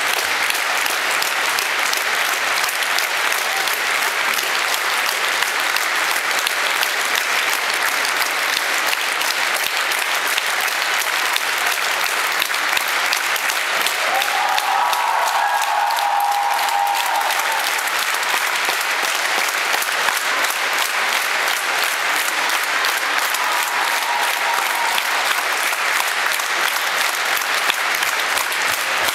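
Theatre audience applauding steadily, a dense wash of many hands clapping. A brief pitched call stands out above the clapping about halfway through.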